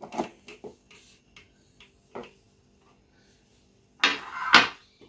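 Plastic lid of a blender jar being handled and fitted on: a few light clicks and knocks, then a loud scraping rub lasting under a second, about four seconds in.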